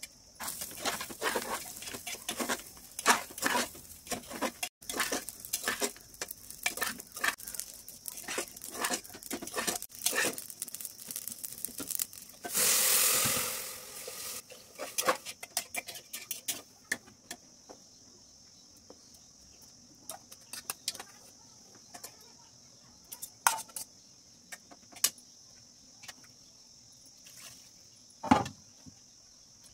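Metal spatula and spoon clinking and scraping in an aluminium pressure cooker as rice is stirred, many quick clicks for about twelve seconds. Then liquid is poured from a metal mug into the pot for about a second and a half, followed by scattered clinks and one loud metal clank near the end. A steady high insect chirring runs underneath.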